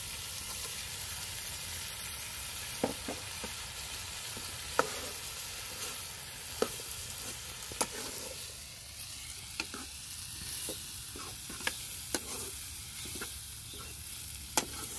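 Potatoes and cauliflower sizzling in hot oil and spices in a wok, stirred with a metal spoon. Sharp clinks of the spoon on the pan come every second or so.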